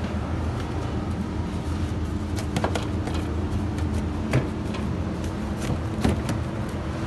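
Steady low hum of machinery, with a few light knocks and clicks as dough loaves are set into metal loaf tins, near the middle and again near the end.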